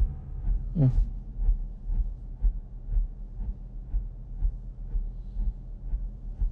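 Film score sound design: a low, steady pulse about twice a second, with one quick falling whoosh a little under a second in.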